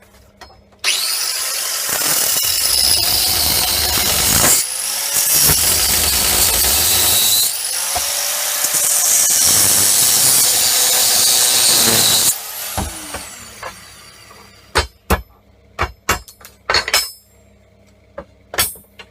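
A power tool working on the metal of a MIG welding torch runs loudly for about eleven seconds, with two brief dips. It then winds down with a falling whine, followed by a series of sharp metallic clinks and knocks as parts are handled.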